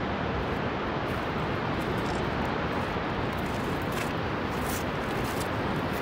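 Steady, even rush of the Vøringsfossen waterfall falling into its gorge.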